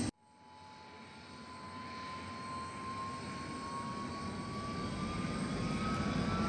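Antonov An-124-100 Ruslan's Progress D-18T turbofan engine starting up: a thin whine that rises slowly and steadily in pitch over a low rumble, the whole sound growing steadily louder.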